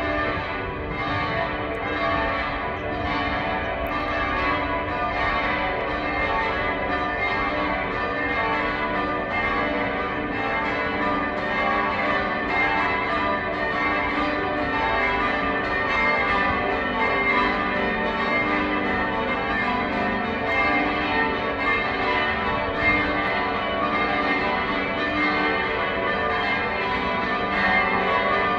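Cathedral church bells being change-rung: a steady, unbroken run of bell strikes, the tones overlapping into a continuous ringing wash.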